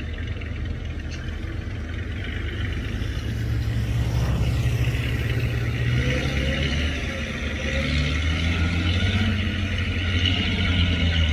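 Heavy diesel earthmoving machinery running under load, its low engine note shifting in pitch, with mechanical clatter over it; it grows somewhat louder about a third of the way in.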